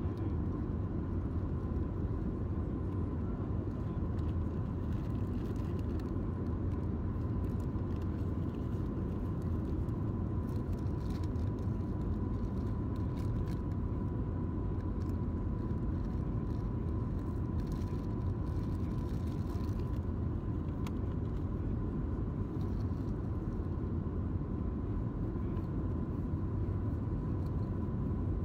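Steady cabin rumble of a Boeing 737-700 in flight, heard from a window seat over the wing: the drone of its CFM56-7B turbofans and the rush of air past the fuselage, with a faint steady high tone above it.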